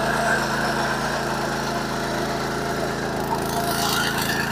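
Power weeder's 9 HP petrol engine running steadily under load as its rotary tines till dry soil.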